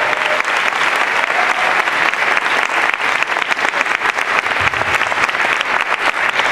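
Audience applauding, a dense steady clapping that keeps going without a break.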